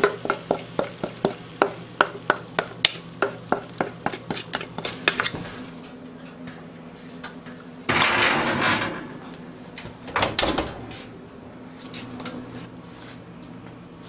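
A metal utensil clinks rhythmically against a stainless steel mixing bowl of cornbread batter, about four strikes a second, for the first five seconds. About eight seconds in, a cast-iron skillet scrapes onto the wire oven rack with a rattling metal sound, followed by a few clanks about two seconds later.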